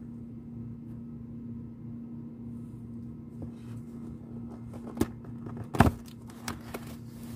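Electric kettle running with a low steady hum, and a few sharp clicks and knocks, the loudest about six seconds in.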